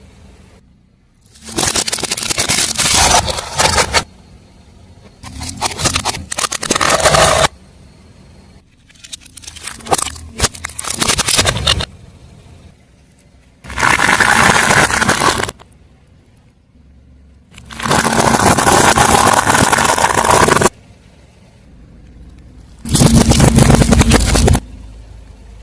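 A car tyre rolling over crunchy objects and crushing them, with crackling and scraping. The sound comes in six separate bursts of a few seconds each that start and stop abruptly, with quieter gaps between them.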